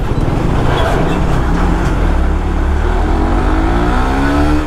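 Motorcycle engine running under a heavy wind rumble, then revving up with a rising pitch over the last second and a half.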